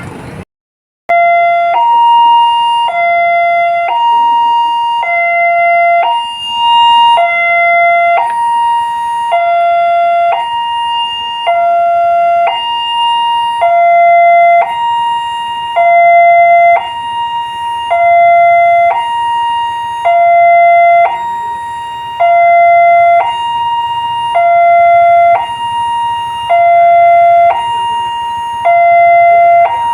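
Railway level-crossing warning alarm sounding a loud electronic two-tone signal, alternating between a lower and a higher tone about once a second; it starts about a second in after a brief silence. The signal warns that a train is approaching and the crossing is closing.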